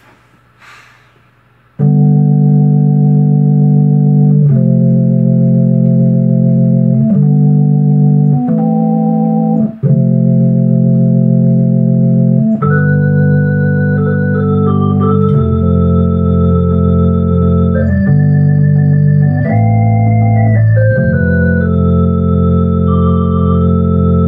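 Two-manual drawbar console organ playing sustained chords that change every second or two, starting about two seconds in. About halfway through a higher melody line comes in over held low bass notes.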